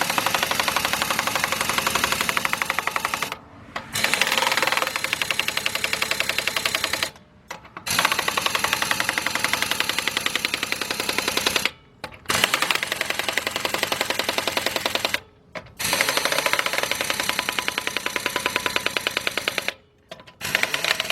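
Craftsman 16882 half-inch-drive air impact wrench hammering on the wheel lug nuts in long runs of rapid blows, stopping briefly five times between trigger pulls. The gun is running on low air, about 50 psi, which the owner suspects is why it tightens so poorly.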